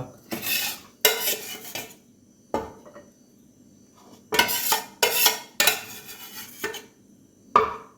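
Cutlery and dishes clinking and scraping in a string of short bursts with pauses between them.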